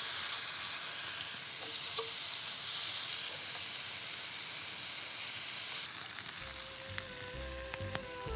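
Strips of pork belly sizzling on a hot ribbed grill pan, a steady hiss of frying fat. Background music comes in near the end.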